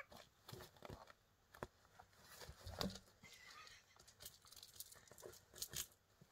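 Faint, irregular rustling and crinkling of a non-woven reusable shopping bag being pushed about from inside by a kitten, with light scratchy taps, the loudest about three seconds in and again near the end.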